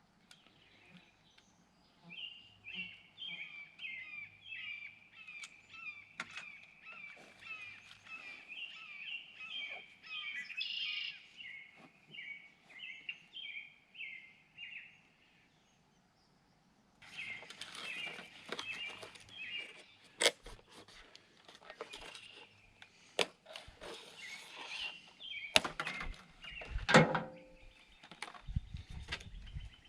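Birds singing: a rapid series of repeated chirping notes for several seconds. After a brief gap the chirping goes on, mixed with a series of sharp clicks and knocks, the loudest near the end.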